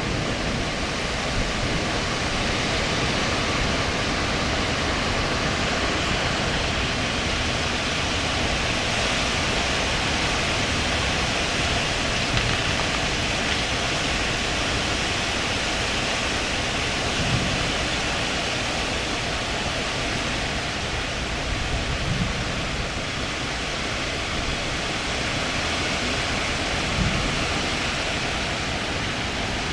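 Strong thunderstorm gust-front wind rushing through tree leaves, swelling and easing, with wind rumbling on the microphone and a few brief low thumps.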